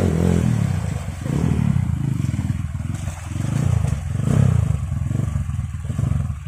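Dirt bike engine revved in repeated surges, roughly once a second, over the rush of river water.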